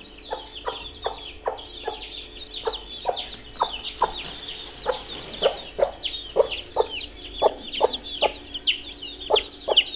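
Many newly hatched chicks peeping, a dense chorus of high, falling peeps. Under it a broody hen clucks in short low calls, about two to three a second.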